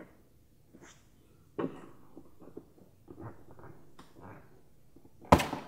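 Plastic fender-liner clip being worked loose by gloved hands, with faint scraping and small clicks, then one sharp snap near the end as it pops out.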